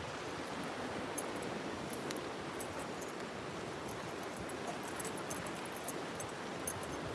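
Steady rush of wind with scattered light metallic clicks from footsteps on a steel-grating bridge deck.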